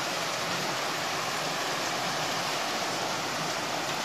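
River water rushing over boulders in small rapids: a steady, even rush with no change in level.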